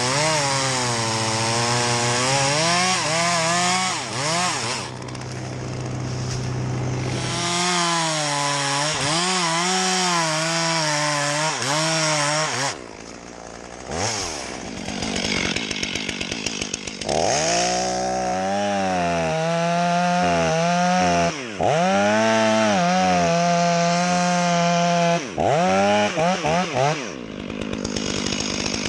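Two-stroke chainsaw cutting wood, its engine pitch sagging under load and climbing back again and again, with a short lull about halfway and several quick throttle drops near the end.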